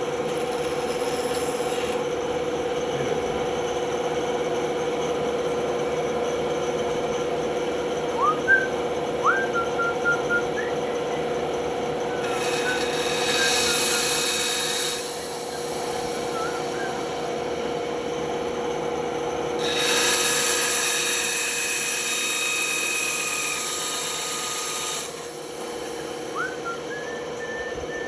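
Band saw running with a steady motor hum, its blade cutting wood in two stretches of a few seconds each, about twelve and twenty seconds in. A few short squeaky chirps come in between.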